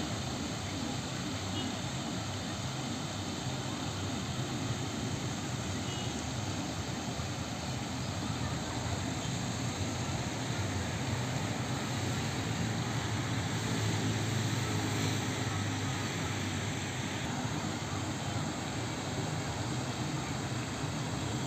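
Steady rushing and splashing of park fountain jets spraying into a pool, with a low rumble underneath that swells a little midway.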